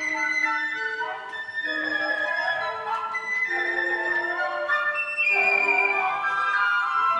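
A flute sextet playing in concert, several flute parts sounding together in harmony with held notes over moving lines.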